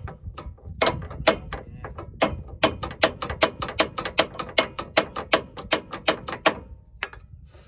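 A steady run of sharp metallic clicks or taps, about three a second, from hand tools working on a stuck tie rod. The clicks stop near the end, with one last click after a short pause.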